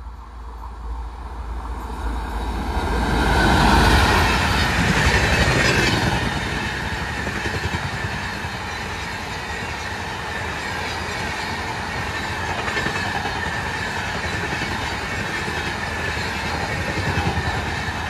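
Indian Railways WAP-4 electric locomotive and LHB passenger coaches passing at speed. The noise of wheels on rail builds quickly to its loudest about four seconds in, then runs on steadily as the long rake of coaches goes by.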